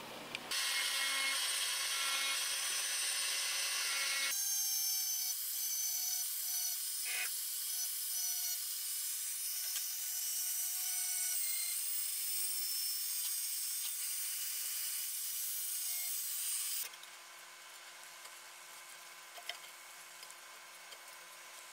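Small pencil-type rotary grinder with a mounted abrasive stone running at high speed and grinding on the metal housing of an old Makita 1800 electric planer, a steady high-pitched whine with grinding noise. It cuts off suddenly, leaving a faint hum and a couple of light clicks.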